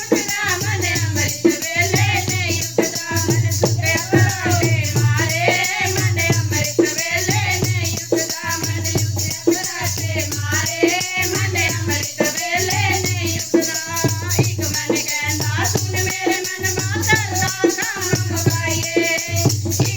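Devotional kirtan music: a wavering melody line over a steady pulsing drum beat, with shaken, jingling rattle-type percussion keeping time.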